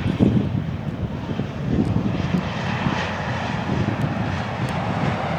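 Jet airliner engine noise building about two seconds in, heard over gusty wind buffeting the microphone.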